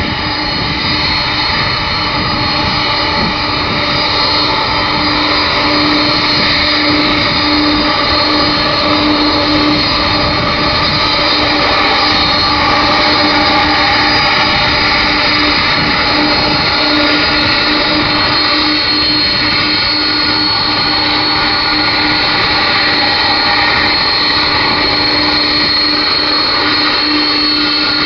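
Boeing 747-400LCF Dreamlifter's four Pratt & Whitney PW4062 turbofans running at taxi power: a steady jet whine with a high tone over a low hum and rush. It grows a little louder over the first few seconds as the aircraft comes toward the microphone.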